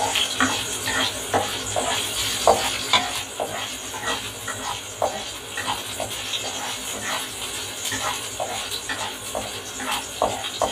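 Cubes of pork fat sizzling as they render in a hot stainless-steel wok, stirred with a black spatula that scrapes and taps the pan over and over at an uneven pace.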